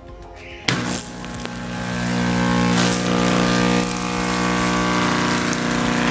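Vibratory submersible water pump ('bomba sapo') switched on about a second in: a loud, steady electric buzz, with water splashing as it drives a spray out of the riser pipe. It is pumping strongly after repair.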